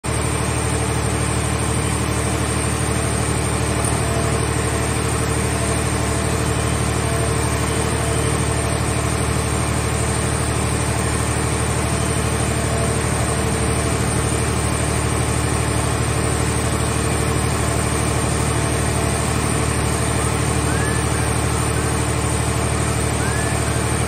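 Hydraulic car baler's power unit running steadily, a constant machine hum with low droning tones, while its grab crane lowers a car body into the press box. A few faint high squeaks come near the end.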